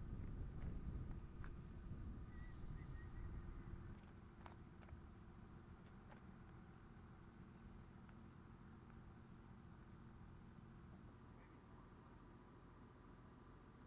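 Insects trilling steadily, a continuous high, finely pulsing chirr, over a faint low rumble that drops away about four seconds in.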